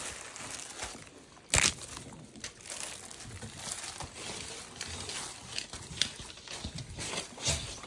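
Packaging being handled and opened: crinkling and rustling of wrapping, with one loud sharp crackle about a second and a half in.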